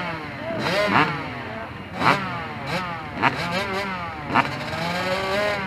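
Several dirt bike engines idling and being revved at once, their overlapping pitches repeatedly rising and falling, with a sharp throttle blip roughly every second.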